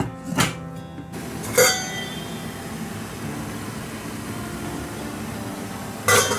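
Kitchenware clinking: a few sharp clinks with a short ring, one about one and a half seconds in and a quick cluster near the end, over soft background music.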